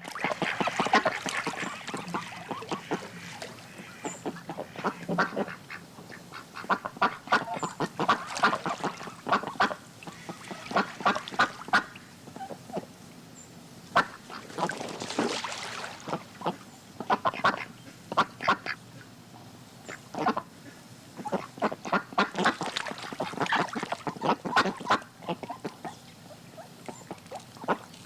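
Ducks quacking on water, in repeated runs of short calls that come and go every few seconds.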